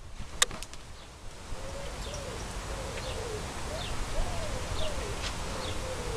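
Faint bird calls: low, wavering coo-like notes and short high chirps, over a steady outdoor background hiss, with a single click just after the start.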